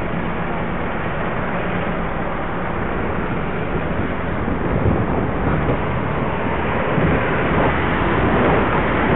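Steady rushing wind noise on a bike-mounted camera microphone, mixed with road traffic noise. It grows a little louder toward the end.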